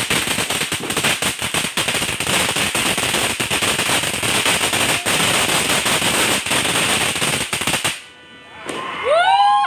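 Ground fireworks going off: a rapid, dense run of crackling pops, many per second, over a hiss of spraying sparks. It stops suddenly about eight seconds in.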